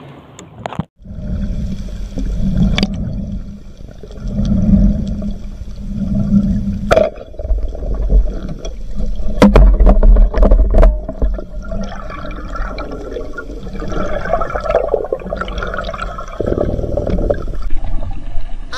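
Underwater sound picked up by a diver's camera: a loud, uneven rumble of moving water and bubbling, starting about a second in as the camera goes under, with a few sharp clicks and knocks.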